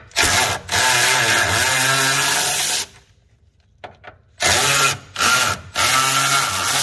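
Power tool spinning out 13 mm bolts in several bursts: a short one, a long run of about two seconds, then three shorter runs near the end.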